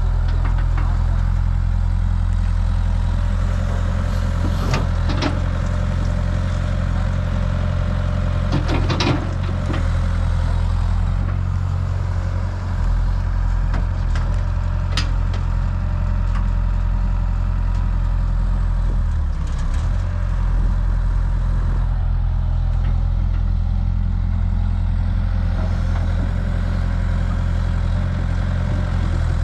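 A heavy diesel engine, from a tractor or backhoe loader, runs steadily at a constant speed, with a few sharp metallic clanks in the first half.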